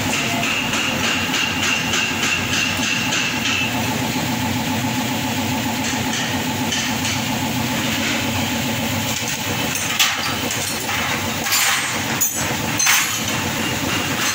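A machine running steadily with an even, pulsing hum, a thin high whine over it for the first few seconds, and a few sharp clacks near the end.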